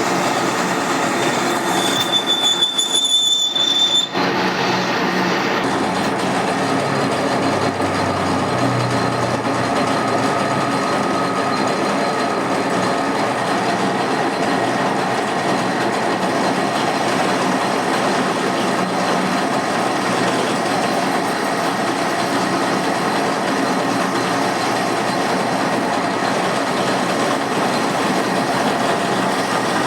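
Machine tool running steadily while machining a metal spacer, with a brief high-pitched squeal a couple of seconds in.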